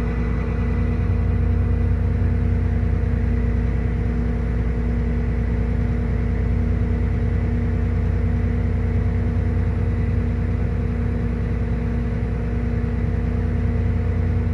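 Vehicle engine running at a steady speed: a constant low drone with a steady hum over it.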